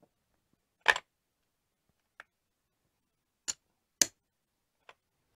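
Casino chips clicking as they are set down one stack at a time on the place-bet numbers of a craps table. There are about five short, sharp clacks with quiet gaps between them. The loudest comes about a second in, and a pair of clacks falls between three and four seconds.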